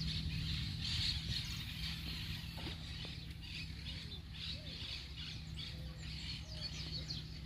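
Birds chirping, with a steady low hum underneath.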